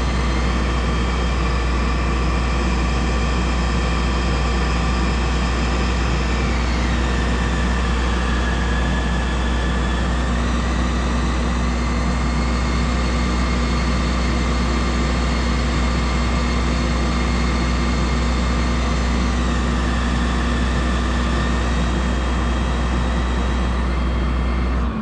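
Crane truck's engine and hydraulics running steadily with a deep rumble and a whine whose pitch falls about seven seconds in, rises again around eleven seconds, and dips near twenty seconds as the engine speed changes. The sound cuts off abruptly at the end.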